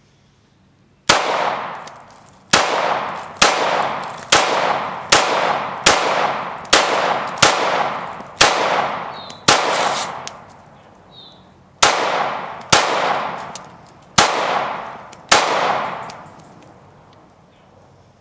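Glock 26 9mm subcompact pistol fired fourteen times, about one shot a second, with a pause of about two seconds after the tenth shot. Each shot is followed by a long echoing tail.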